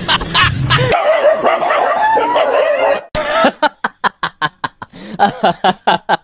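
A dog yelping and whining in high, wavering cries, then, about three seconds in, a fast even run of short sharp calls, about four a second.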